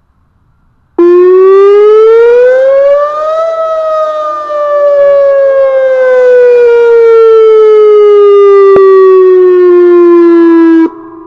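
Whelen 2805 electronic outdoor warning siren sounding one loud wail for its weekly test. It starts abruptly about a second in, rises in pitch for a couple of seconds, then falls slowly for about seven seconds and cuts off sharply near the end, leaving a fading echo.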